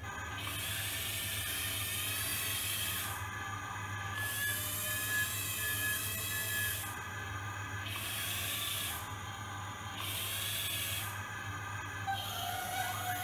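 Remote-control toy excavator's electric gear motors whirring in about five bursts of a few seconds each as the boom and bucket move, with a steady low hum underneath.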